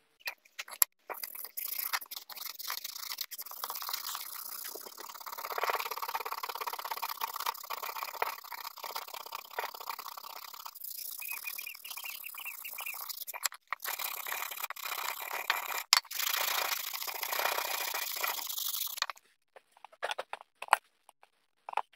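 Wood being hand-sanded with 400-grit sandpaper: a steady scratchy scrubbing of quick back-and-forth strokes, breaking off briefly twice. Near the end it gives way to a few light clicks of small parts set down on the bench.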